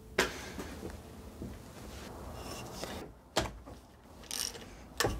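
Socket ratchet wrench working a seized, rusted cylinder-head nut on a British Seagull outboard: a few sharp metal clicks and knocks with faint ticking between. The nut does not feel good under the wrench, as if the stud may snap.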